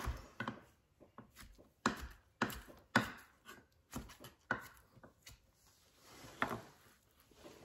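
Kitchen knife dicing bacon rashers on a cutting board: a dozen or so sharp knocks of the blade hitting the board, at an uneven pace.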